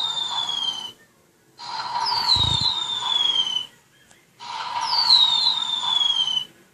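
Coji toy robot's small speaker playing the same electronic sound effect over and over, a hissy sound with a whistle gliding down over a steady tone, about two seconds long with short gaps between repeats. A low thud comes midway.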